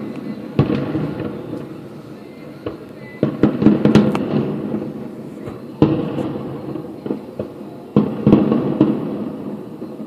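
Distant aerial fireworks shells bursting in several volleys, each sharp boom followed by a low rumble that dies away. One burst comes about half a second in, a quick cluster around three to four seconds, another near six seconds, and a final cluster around eight seconds.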